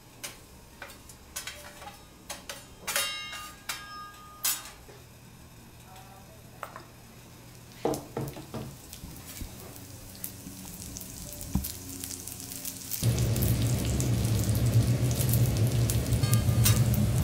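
Tiny dried fish frying in oil on a teppanyaki steel griddle. At first there are only scattered clicks and scrapes of metal utensils. About thirteen seconds in, a loud, steady sizzle starts suddenly and carries on as the fish are stirred with a spatula.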